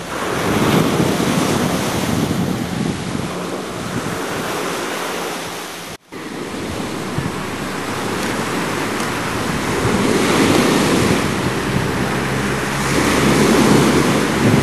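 Wind buffeting the microphone over a choppy sea, with waves washing, rising and falling in gusts. The sound cuts out for an instant about six seconds in.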